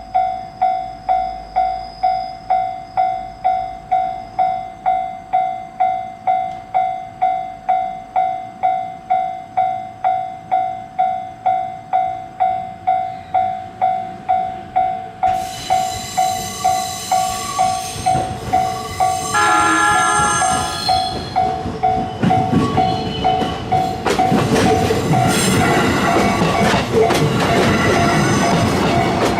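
Japanese railroad crossing warning bell ringing about twice a second. About halfway in, a JR Ome Line electric train sounds its horn for several seconds, then runs over the crossing with its wheels clattering over the rail joints.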